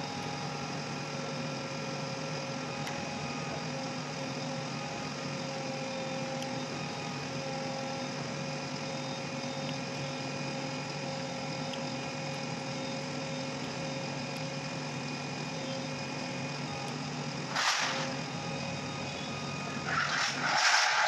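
JCB backhoe loader's diesel engine running steadily under working load. A short loud noise comes about three-quarters through and louder ones near the end, as the load of steel sheets is lowered to the ground.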